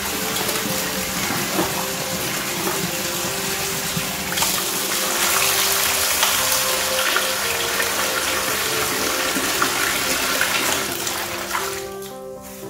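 Tap water pouring into a metal basin and splashing as hands rub and rinse pieces of frog meat. The water runs louder from about four seconds in and eases off near the end. Background music plays underneath.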